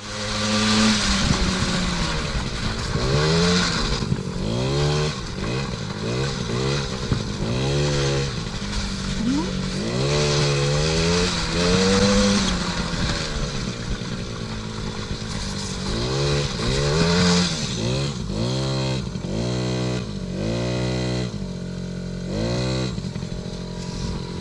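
50cc two-stroke engine of a kids' ATV running and revving up and down over and over as it is ridden. Its pitch rises and falls many times, with quicker, shorter swings in the second half.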